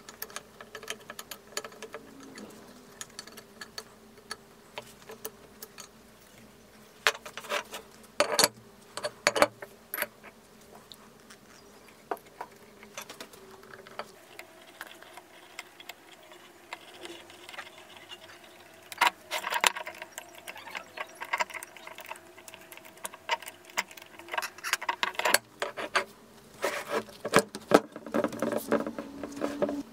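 Metal clicks, scrapes and clinks of hand work on a cast-iron drill press vise: a screwdriver turning the screws that hold the jaw plates, and the heavy vise parts being handled on a wooden bench.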